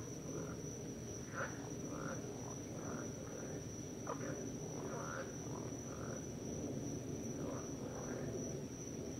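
Night chorus: frogs giving short chirping calls, irregularly about one or two a second with a brief pause near the end, over a steady high-pitched insect trill.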